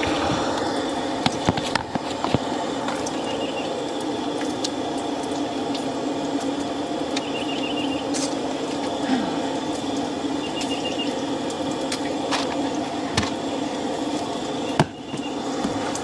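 Bacon sizzling steadily in a frying pan on a propane camp stove, with scattered pops and crackles of fat.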